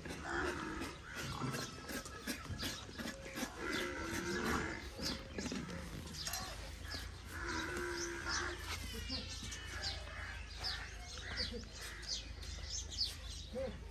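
Farm animals calling several times, with birds chirping throughout and a quick run of chirps about nine seconds in.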